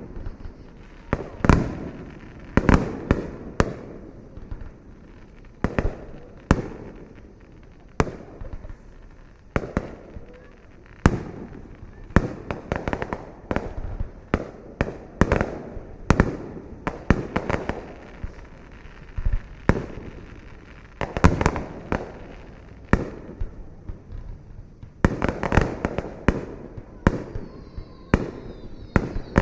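Fireworks display: a long run of aerial shells going off in irregular succession, each a sharp bang with a trailing rumble or crackle, sometimes several close together. A brief high whistle comes near the end.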